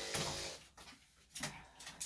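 Electric dog grooming clippers buzzing, then stopping about half a second in, followed by a few brief knocks and rustles.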